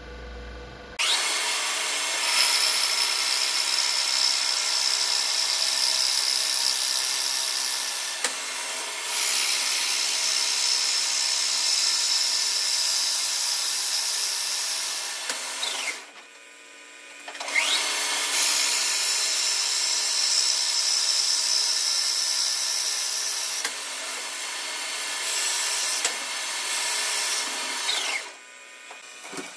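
Metal lathe turning a wooden handle blank, the cutting tool peeling off wood shavings with a steady, loud rasp. The cutting comes in two runs with a short pause between them, and a faint whine rises as each run starts and falls as it stops.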